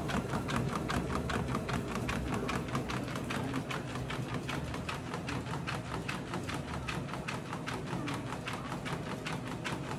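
Motorized treadmill running with a steady hum, and a small dog's paws tapping quickly on the moving belt, several steps a second in an even rhythm.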